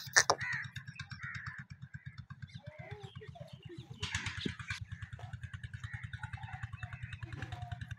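An engine idling steadily, a fast even low pulsing throughout, with birds chirping over it and a sharp knock right at the start.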